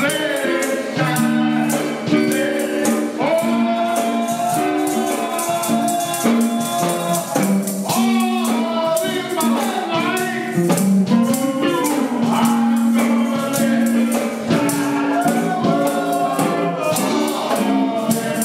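Gospel music in church: voices singing with a tambourine shaking a steady beat and held accompanying notes.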